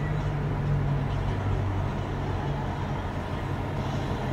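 A car being driven: steady road noise with a low engine hum that weakens after about two seconds.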